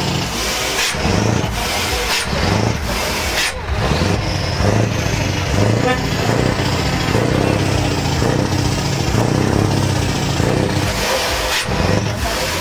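Truck engine running steadily, with people talking in the background.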